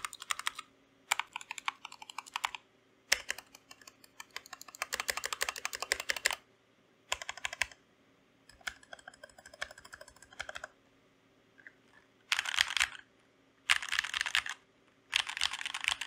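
Typing on a Keychron K2 V2 mechanical keyboard with an aluminium frame and stock Gateron Red linear switches: bursts of rapid keystrokes separated by short pauses.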